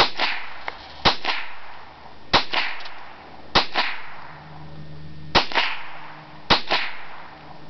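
.22 calibre Marlin rifle firing six shots about one to two seconds apart. Each crack is followed almost at once by a second crack.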